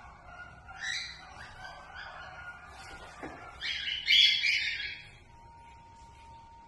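Bird calls: a short call about a second in, then a louder, harsh squawk lasting about a second near the middle. A thin steady tone sets in after about five seconds.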